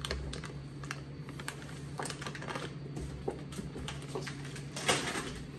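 A plastic snack bag being handled, giving irregular light crinkles and clicks, over a low steady hum.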